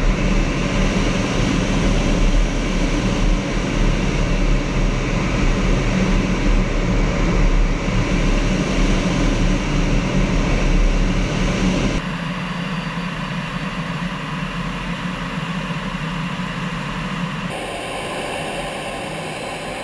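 Steady jet engine and airflow noise heard inside a Yak-130 jet trainer's cockpit in formation flight, with a deep low rumble. The sound changes abruptly about twelve seconds in, becoming somewhat quieter and thinner in the low end, and shifts again near the end.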